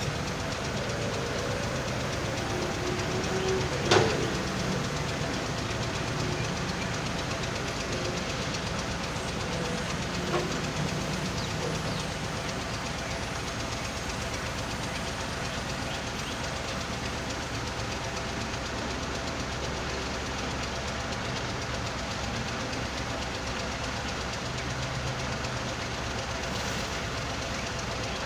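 Diesel excavator and stone-and-sand screening machine running steadily, with a sharp loud clank about four seconds in and a lighter one about ten seconds in.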